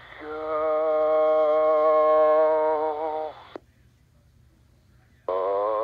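Radio voice call from the Blue Angels' air-to-air channel on a scanner's AM speaker, one long drawn-out vowel held steady for about three seconds. The transmission ends with a squelch click, then a second of near silence, and another drawn-out call begins near the end.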